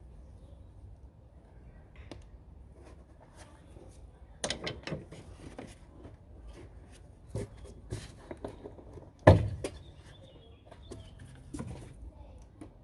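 Scattered clicks and knocks of plastic engine-bay intake parts being handled and moved, with one sharp knock about nine seconds in.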